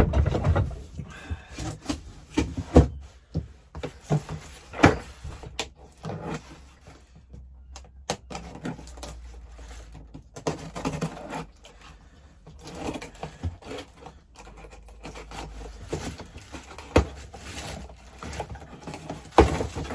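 A small cardboard box being opened and the packed parts inside handled: irregular knocks, clicks and scraping with rustling between, the loudest knock at the very start and another about five seconds in.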